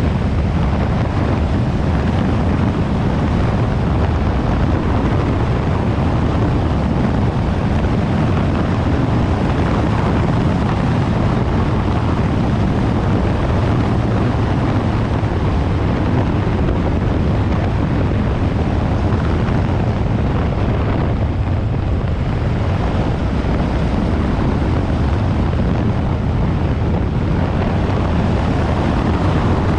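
Yamaha Ténéré 700's 689 cc parallel-twin engine running steadily as the motorcycle rides along, with wind noise on the microphone. The sound eases briefly about two-thirds of the way in.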